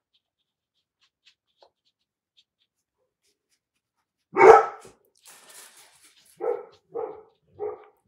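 A dog barking: one loud bark about four seconds in, then a run of shorter barks roughly every half second near the end.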